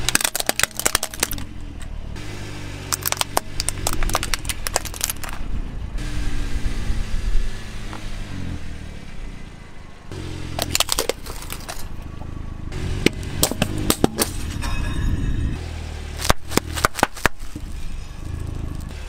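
Car tyre rolling slowly over objects such as plastic computer mice and wrapped bread buns and crushing them, giving several bursts of cracking and crunching over the low rumble of the car.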